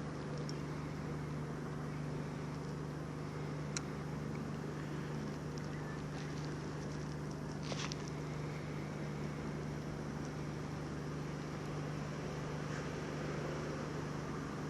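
A steady mechanical hum at a constant pitch, with a faint click about four seconds in and a brief hiss near eight seconds.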